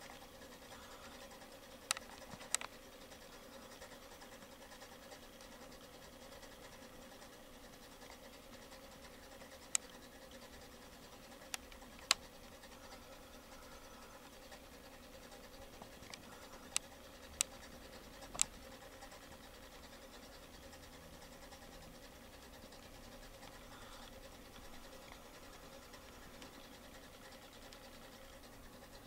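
United Model 640 vintage electric mantel clock running, its synchronous motor giving a faint, steady hum. A few sharp clicks come at irregular moments.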